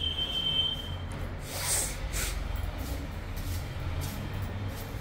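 Low rumble of a handheld phone being carried through rooms, with a brief high squeak in the first second and a short hiss about two seconds in.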